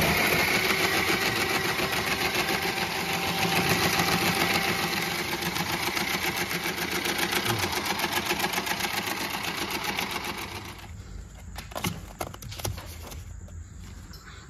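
Electric ice-shaving machine for raspados running steadily with a fast whirring flutter, then switched off about ten and a half seconds in, followed by a few light clicks and knocks.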